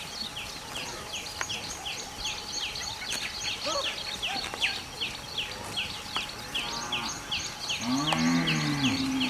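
A cow mooing once near the end, a low call that rises and falls in pitch for a little over a second. Throughout, a steady series of high, quickly falling chirps repeats about three times a second.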